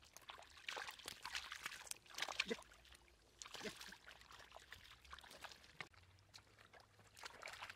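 Splashing and sloshing in shallow muddy water as hands grope through the mud and catfish flop about, in irregular bursts.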